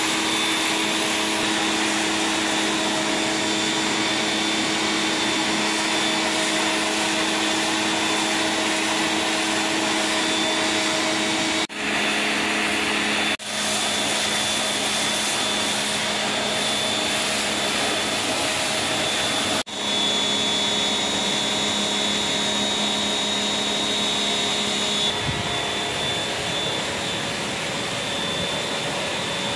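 Electric high-pressure washer running: a steady motor-and-pump whine under the hiss of the water jet spraying onto a pebble-stone floor. The sound cuts out briefly three times, and the pitch of the whine shifts near the end.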